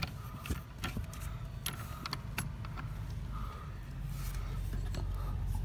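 Scattered light clicks and small rattles as plastic dashboard trim is worked loose by hand, over a steady low hum.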